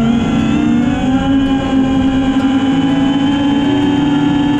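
FPV racing quadcopter's brushless motors and propellers buzzing in flight, heard from the onboard camera; the pitch rises a little in the first second, then holds steady.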